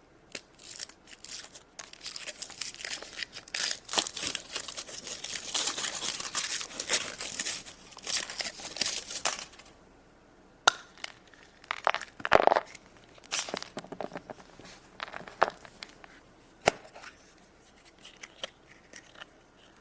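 Foil wrapper of a chocolate egg being crinkled and torn off by hand, a dense run of crackling for several seconds. This is followed by a few separate sharp cracks and clicks as the egg is opened.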